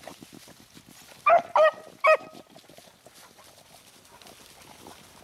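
Beagle hound giving three quick short barks about a second in, the voice a hunting beagle gives on a rabbit's scent. Faint rustling of paws through dry fallen leaves runs under the barks.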